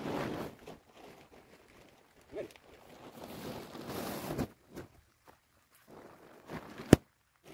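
Black plastic tarp rustling and scraping as it is dragged and folded on the ground, with footsteps on dry stalks. A single sharp click near the end is the loudest sound.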